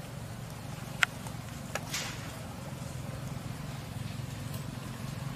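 Outdoor ambience: a steady low hum, with a sharp single click about a second in and a short dry rustle about two seconds in.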